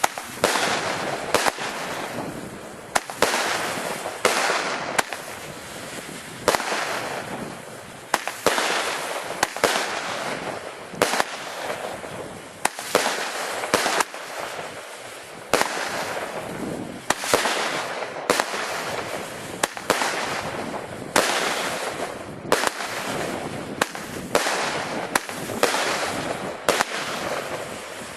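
Weco Big-Crackles firework battery firing shot after shot, about one a second. Each launch crack is followed by about a second of dense crackling from the bursting crackle stars.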